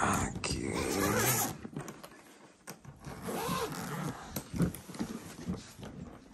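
Hard-shell carry-on suitcase being handled and tipped over on a bed: rustling and scraping of the plastic shell and spinner wheels, with a sharp knock about four and a half seconds in.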